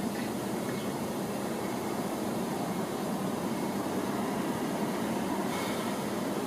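Steady background noise, an even rumble and hiss with no distinct events.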